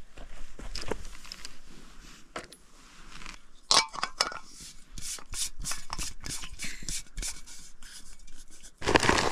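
Small metal parts scraping, clicking and knocking as a folding backpacking canister stove is handled and screwed onto a gas canister, with softer rubbing of hand-held gear at first.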